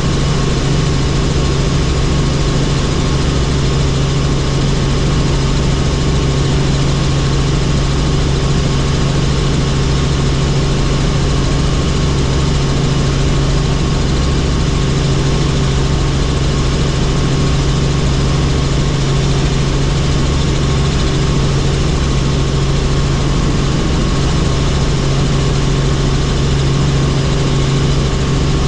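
Helicopter in flight: a loud, steady drone of engine and rotor, a strong low hum with fixed higher whining tones over it and no change in pitch or level.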